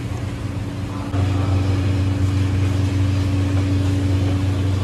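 Steady low hum of ventilation fans or air conditioning, with a clear droning tone, stepping up louder about a second in.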